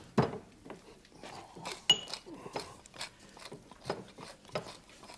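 Tall pepper mill being turned by hand, a run of irregular dry clicks and crackles from the grinding, with one sharp ringing clink about two seconds in.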